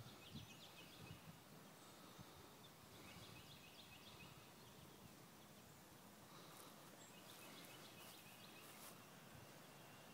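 Near silence: faint outdoor ambience with faint, distant high bird calls, about three seconds in and again in the second half.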